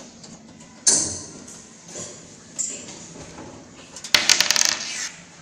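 Metal clicks and scrapes as the sheet-metal side panel and screws of a desktop computer case are worked loose by hand. A few single sharp clicks come first, then a brief burst of rapid rattling clicks a little after four seconds in, the loudest part.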